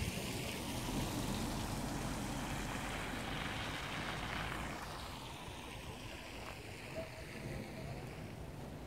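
Wind rushing over the microphone during heavy snowfall, with a car driving past on the snow-covered road; the car's noise swells about three to four seconds in, then fades.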